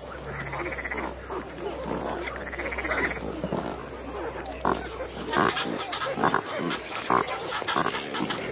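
A pelican breeding colony: many birds calling over one another in low, rough calls, with sharper clicks in the second half.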